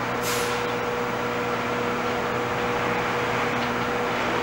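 Steady rumble of a New York City subway train approaching along elevated tracks, with a constant hum under it and a brief hiss about a third of a second in.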